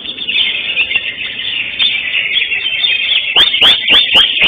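Cucak hijau (greater green leafbird) singing a fast, continuous warbling song. Near the end it breaks into about five loud, sharp notes repeated in quick succession.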